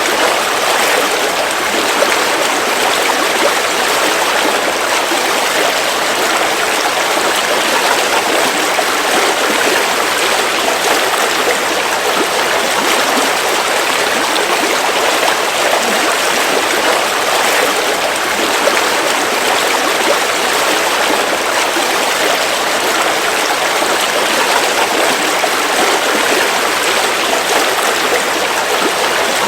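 River water flowing over rocks in a steady, even rush.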